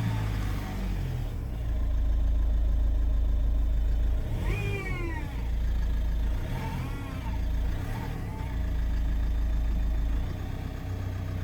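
Ford Mondeo Mk4 2.0 TDCi four-cylinder turbodiesel running in limp mode, its low drone swelling louder twice for a couple of seconds each, with short pitched sweeps near the middle.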